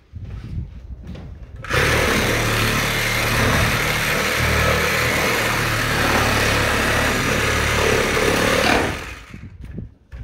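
Cordless reciprocating saw cutting up through plywood roof sheathing. It starts about two seconds in, runs steadily for about seven seconds, and cuts off suddenly. A few light knocks come before it starts.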